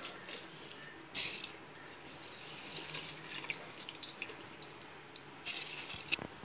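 Soaked basmati rice being dropped by the handful into a stainless-steel pot of boiling water, over the steady bubbling of the boil. There are splashes about a second in and again near the end.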